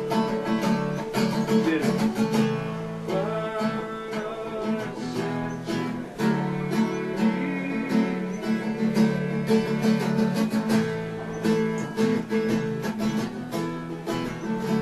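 Acoustic guitar being played, a steady run of strummed and plucked notes.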